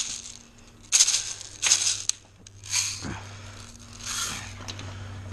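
Airsoft BBs rattling in four short shakes, the later ones fainter, as the BBs are loaded.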